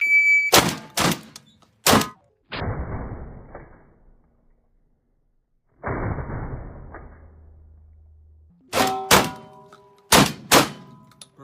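A shot timer beeps once, then a firearm fires a rapid timed string: three shots within about two seconds, a pause, then four more shots about nine seconds in. Two spells of hiss-like noise fill the gap between the strings.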